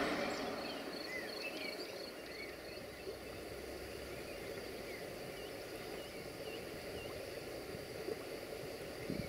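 Faint outdoor ambience with small birds chirping in short, scattered high calls over a soft steady background. A louder rushing noise dies away in the first second.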